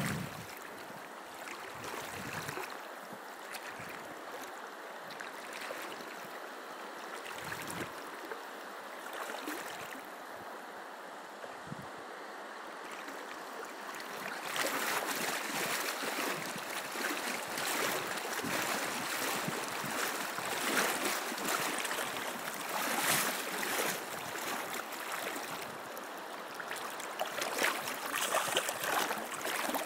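Shallow river water flowing and rippling over stones, a steady rush that grows louder and busier about halfway through.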